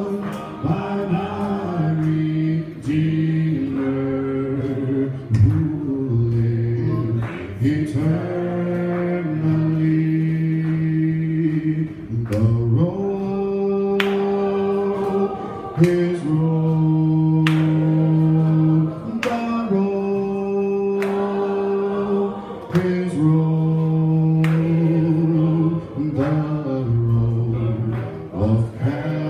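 A man singing a slow gospel song unaccompanied into a microphone, holding long notes that step up and down in pitch.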